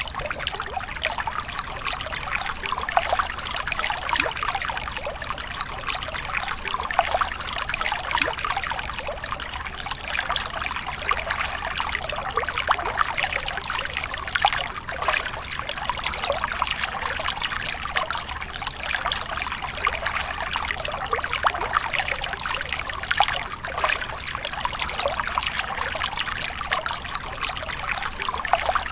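Small stream of water trickling down over rocks into a shallow pool: a steady babble of many tiny splashes.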